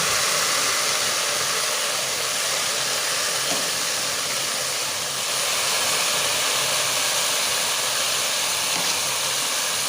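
Duck broth poured into a hot pot of rice sautéed with spices, sizzling with a loud, steady hiss of steam.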